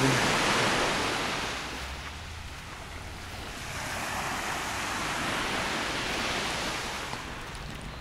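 Small Mediterranean waves washing up on a sandy beach, the surf swelling twice, with a low rumble of wind on the microphone underneath.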